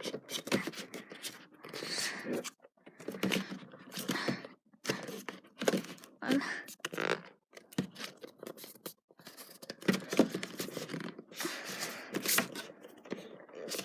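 Packaging of an MGC 4x4 puzzle cube scraping and rustling in irregular bursts with scattered clicks, as the cube is worked out of its tight box.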